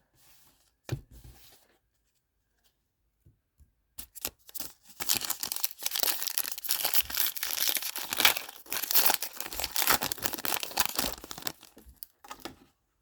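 A football trading card pack wrapper being torn open and crinkled by hand, a long stretch of crackling and tearing that starts about four seconds in and stops near the end, after a few light clicks.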